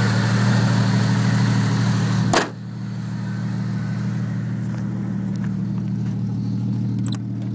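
Jeep Grand Cherokee's straight-six idling steadily, with a single thump about two seconds in, after which the idle sounds quieter and duller.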